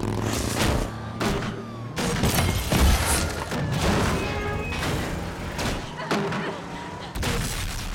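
Action-film chase soundtrack: music under a rapid string of crashes and heavy impacts, with vehicle noise, as a big mobile crane smashes through parked cars.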